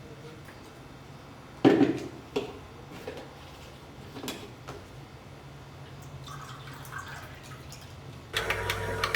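A few scattered knocks and clicks with water dripping in a small room, with music coming in near the end.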